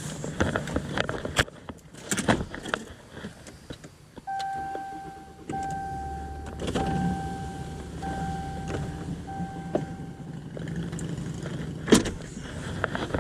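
Clicks and rattles of handling, then a steady beep sounding five times, each about a second long, over a low electric motor hum. This comes while the Mercury outboard's tilt-trim relays, suspected of having water in them, are being checked. A sharp click near the end.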